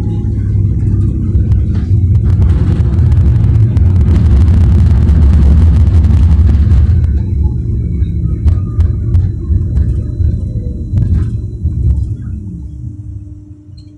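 Bombardier NGT6 tram running on its rails with a loud low rumble that builds to a peak, followed by a run of sharp knocks and clicks. The rumble then fades near the end.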